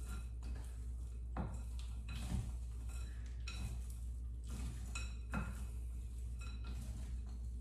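Roasted cauliflower, toasted nuts and seeds and raisins being stirred in a glass bowl with a utensil: soft scraping with short knocks and clinks against the glass about once a second, over a low steady hum.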